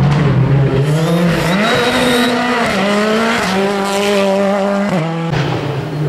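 Rally car engine at high revs, its note holding steady and then stepping down at each of several gear changes.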